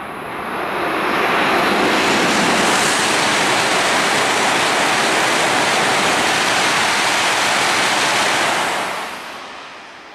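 E5 series Shinkansen coupled to an E6 series set passing at about 265 km/h: a rising rush as the train arrives, then a loud steady rush of air and wheel noise for about seven seconds, dropping away quickly near the end as the tail goes by.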